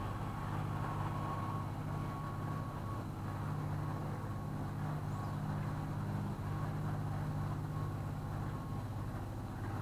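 A small canal cruiser's engine running steadily under way, a low even drone with a faint high whine that comes and goes.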